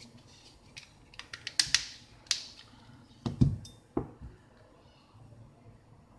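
A series of sharp clicks and taps from small hard objects being handled: a quick cluster of clicks between one and two and a half seconds in, then two heavier knocks a little past the middle, after which it goes quiet.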